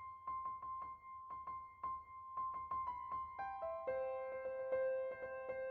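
Short keyboard music in piano style: quick repeated notes over a held high note, then further notes entering one after another and holding together as a chord in the last couple of seconds.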